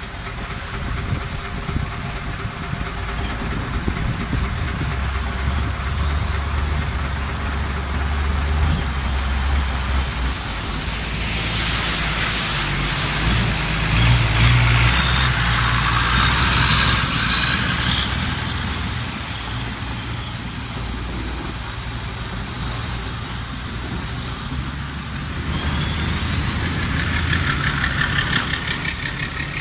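Longtail boat engine running steadily under way. About eleven seconds in, another longtail boat passes close with its engine whining and its wake rushing, and this is the loudest part. A second boat goes by near the end.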